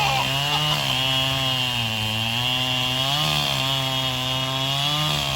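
Echo CS-7310P chainsaw with a 24-inch bar running at full throttle through a log, its pitch sagging twice under the load of the cut and picking back up.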